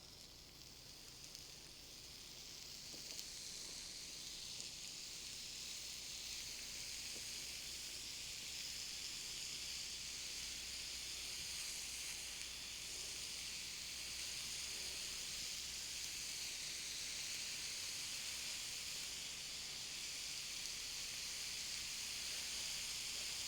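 Raw pork sausage patties sizzling as they fry on a hot grill, the sizzle building over the first few seconds and then holding steady.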